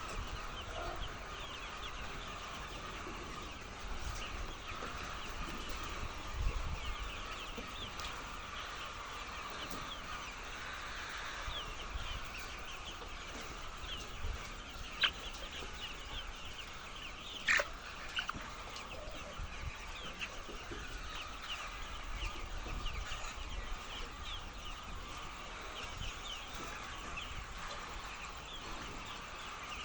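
A flock of laying hens clucking and chirping continuously, many calls overlapping, with two sharp clicks about halfway through.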